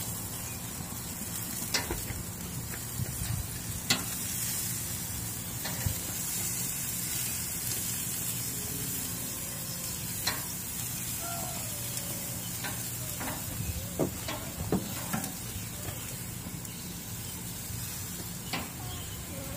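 Hot dogs sizzling steadily on a grill grate, with a dozen or so sharp metallic clicks as tongs turn them against the grate.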